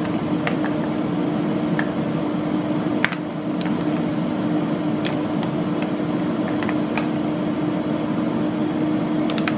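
A kitchen appliance running with a steady hum and a constant low tone. Over it come about ten light, scattered clicks of macadamia nuts dropping from the bag into a plastic meal-prep container.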